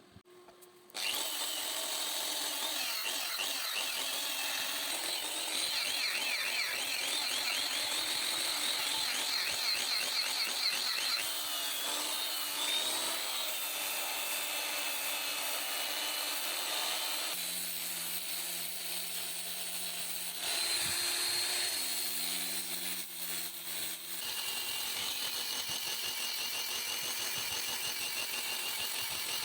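A power tool running steadily on wood, starting suddenly about a second in, its pitch shifting now and then as the load changes.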